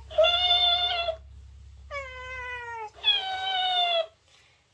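Three long, drawn-out cat meows, the second sliding down in pitch. A low motor hum from the swaying dancing-cactus toy lies under the first two.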